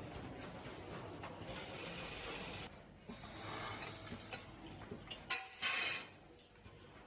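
HWP-500 weigh-counting packing machine for fasteners running: mechanical clatter with small metal parts clinking, broken by several short rushes, the sharpest a little past five seconds in.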